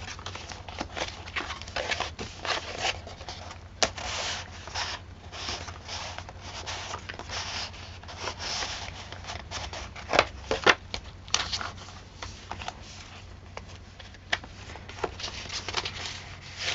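Paper pages, flips and tags of a handmade journal being turned and handled: continuous rustling and rubbing with many small clicks and snaps, a few louder ones about ten seconds in.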